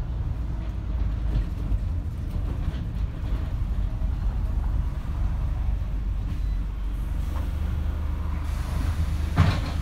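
Scania Omnidekka double-decker bus's diesel engine running with a steady low drone, heard from the upper deck. A brief, sharp, louder noise comes near the end.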